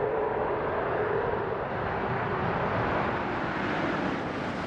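Space Shuttle orbiter Atlantis gliding in low over the runway just before main gear touchdown: a steady rushing noise, with a faint hum that fades out about half a second in.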